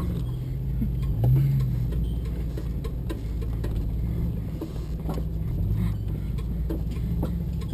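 A 2007 Jeep Wrangler JK's 3.8-litre V6 running at low speed, heard from inside the cab, as the Jeep crawls over a rocky trail. The engine note rises briefly about a second in, and irregular knocks and rattles from the body and suspension come through the whole time.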